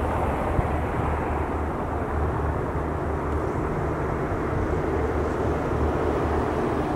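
Diesel train engines idling, a steady deep rumble.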